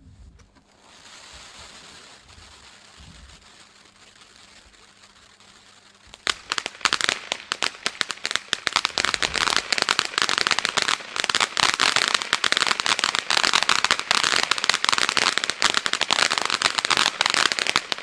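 Weco Color Engine ground fountain (a volcano) burning: a steady spray hiss at first, then from about six seconds in a dense, loud crackling from its crackling effect, which stops abruptly near the end.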